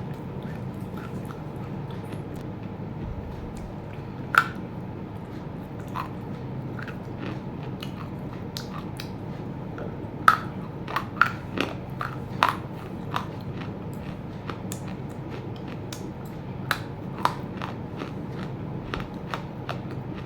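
A person biting into and crunching very hard roasted clay chunks. There are scattered sharp cracks, the loudest about four seconds in and a quick run of them between ten and thirteen seconds, over a steady low hum.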